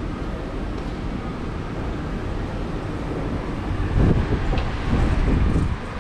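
Steady low rumble of road traffic, with wind buffeting the microphone in louder low gusts about four seconds in and again about five seconds in.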